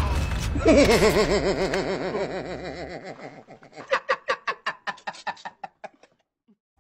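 Laughter: a long wavering laugh that fades away, then a quick run of short 'ha' bursts that tails off.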